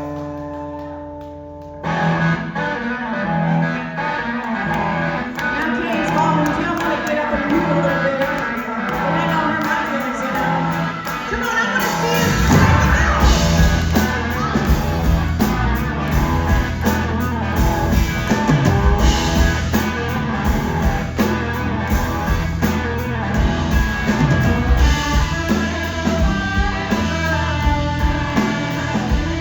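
Live blues-rock band playing, led by electric guitar over bass and drums. A held chord dies away, the band comes in about two seconds in, and it plays louder and fuller from about twelve seconds on.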